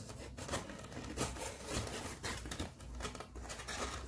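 Tulle fabric rustling and crinkling in irregular bursts as it is pulled and smoothed around a cardboard box, with small taps of hands on the cardboard.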